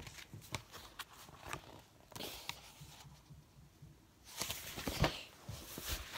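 A picture book being handled close to the microphone: soft paper rustles and light knocks as it is raised, held open and lowered, with the loudest knock about five seconds in.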